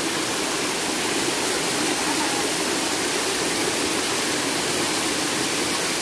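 Waterfall water rushing and splashing down over rock close by, a steady, dense hiss.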